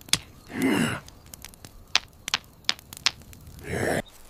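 Two stones struck together over dry grass tinder to raise sparks: sharp clicks, one near the start and a run of four in quick succession in the middle. Between them come two breathy whooshes, one about a second in and one near the end.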